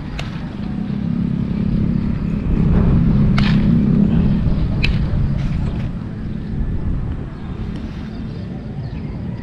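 A motor vehicle's engine rumble swelling to a peak a few seconds in and then fading as it passes, with a few sharp clicks along the way.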